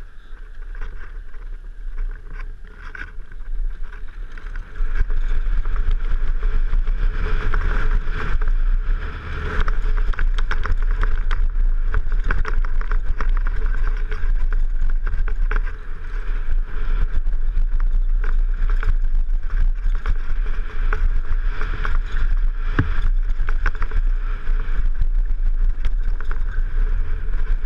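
Downhill mountain bike ridden fast on a rough dirt and rock trail: wind rush and rumble on a helmet-mounted action camera with the clatter of the bike over the ground, louder from about five seconds in as the rider gets going.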